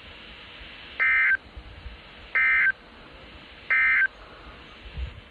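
NOAA Weather Radio SAME digital data bursts: three short, loud, screechy bursts of data tones, about a second and a half apart, over a steady radio hiss. The short burst length marks them as the end-of-message (EOM) code that closes the severe thunderstorm warning broadcast.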